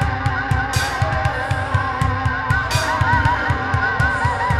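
Rock band playing an instrumental passage: drum kit with a steady beat and a cymbal crash about every two seconds, under electric guitar.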